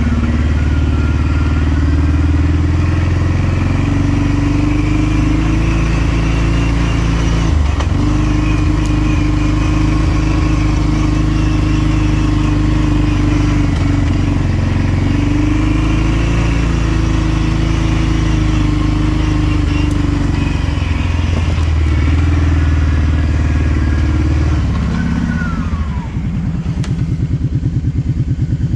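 ATV engine running as the four-wheeler is ridden along a dirt trail, its pitch rising and falling with the throttle. Near the end it drops to a steady putter at idle as the machine comes to a stop.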